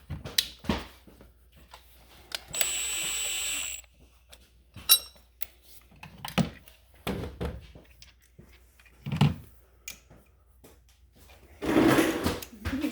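A power tool runs once for about a second, a few seconds in, with a steady high whine. Around it come scattered clicks and knocks of parts and hoses being handled under the hood, with a louder rustling burst near the end.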